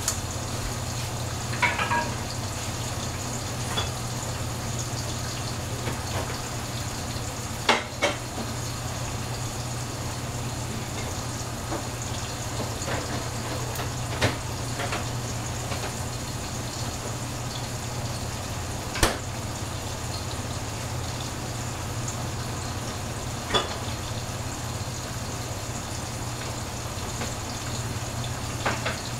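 Food cooking in a covered pot on the stove: a steady bubbling hiss over a low hum, with a few sharp clicks or pops.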